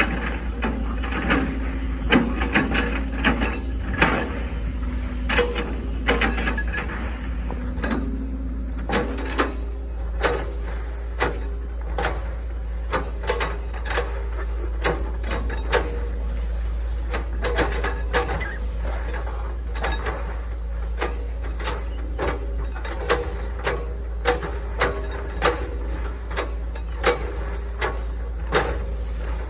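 Hitachi ZX110 MF excavator working: a steady engine drone with frequent sharp, irregular knocks and clanks from the machine. The higher engine note drops about nine seconds in.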